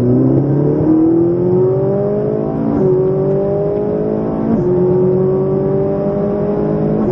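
Ferrari 458 Italia's 4.5-litre V8 accelerating, heard from inside the cabin: the engine note climbs steadily and drops sharply with quick upshifts about three and four and a half seconds in, then climbs again.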